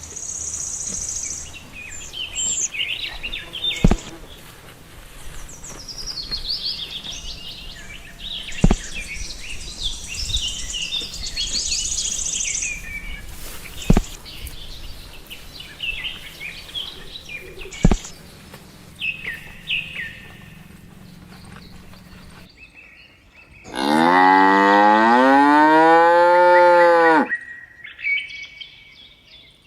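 Small birds chirping and tweeting, with a few sharp clicks, then a cow moos once, a long call of about three seconds, near the end.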